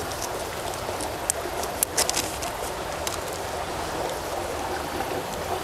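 Creek water running steadily over rocks, with a few light clicks and crinkles about one to two seconds in as a small reagent powder packet is handled.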